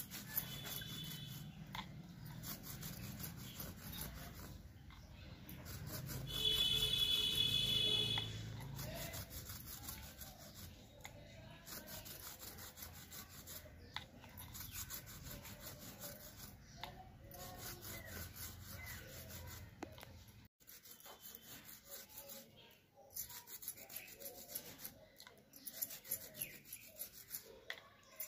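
Toothbrush scrubbing liquid into a braided jute carpet: repeated scratchy strokes of bristles on coarse fibres. About a quarter of the way in, a louder high-pitched tone sounds for about a second and a half.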